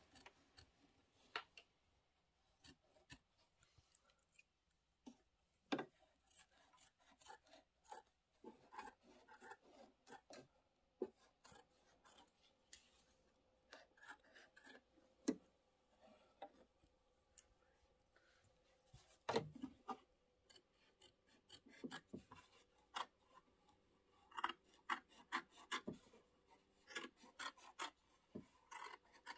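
Scissors snipping through quilt batting in short, irregular cuts, with soft rubbing as the batting is handled and pulled away. Faint, with the snips coming more often in the last third.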